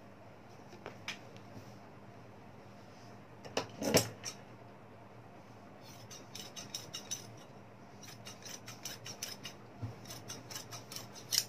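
Large tailor's shears cutting through fabric: two louder clicks about four seconds in, then a run of quick, light snips through the second half.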